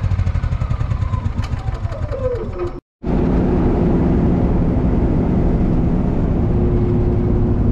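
Honda 7000 generator's engine running just after starting, its pitch falling over about two seconds. Near three seconds in it cuts off abruptly, replaced by the steady, even drone of a vehicle driving.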